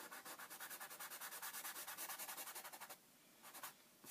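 Fine 320-grit sandpaper rubbed over a paper book page in quick, even back-and-forth strokes, about seven a second, delicately sanding at a dark stain. The sanding stops about three seconds in, and one short rub follows.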